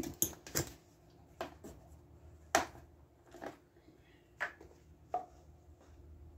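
A series of about nine irregular light knocks and clicks from a person in work boots stepping up to the mower and handling a plastic jug of motor oil at its filler funnel.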